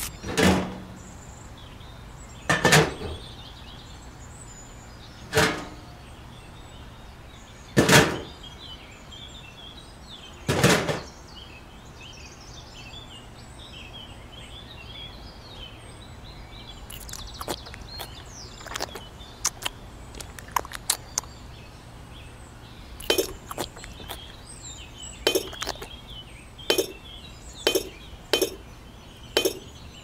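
Hard knocks at an even pace, five of them about two and a half seconds apart, then after a quieter stretch a run of quicker, lighter clicks and taps.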